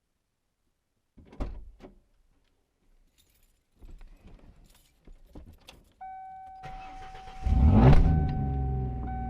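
Inside a 4th-generation Ford Mustang: a few clicks and keys jangling, then a steady electronic warning tone comes on. The engine cranks and starts about seven and a half seconds in, flares briefly, then settles into a steady idle under the tone.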